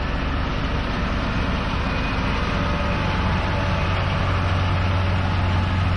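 Case Puma 175 tractor's six-cylinder diesel running steadily, a constant deep hum with no change in speed.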